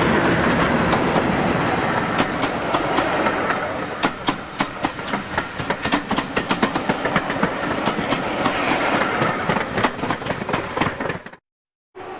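British Rail Class 37 diesel locomotive passing close with its English Electric engine running, then its train of coaches rolling by, the wheels clicking sharply on the rails. The sound cuts off suddenly near the end, and a quieter distant rumble follows.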